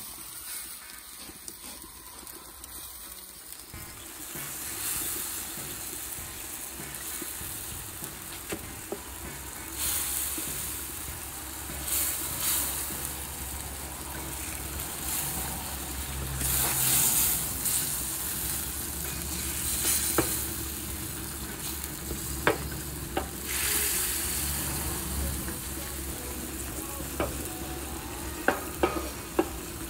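Meat frying in lard on a wide, shallow steel kotlovina pan, sizzling as it is stirred and turned with a wooden spatula; the sizzle swells and fades in waves, with a few sharp clicks of the spatula against the pan near the end.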